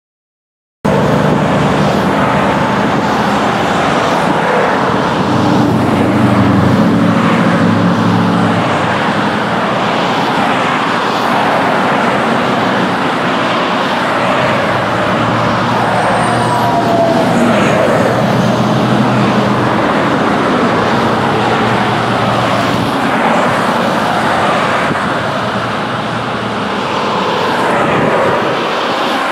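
Commercial jet airliner landing: a loud, steady engine roar with a falling whine about halfway through.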